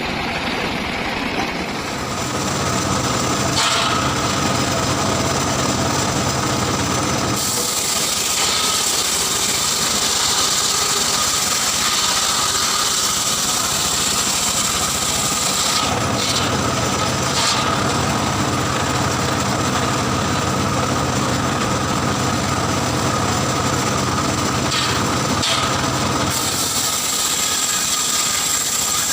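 Circular saw cutting through wood over a steadily running motor. There are two long cuts, one from about 7 to 16 seconds in and another starting near the end, and between them the saw runs without cutting.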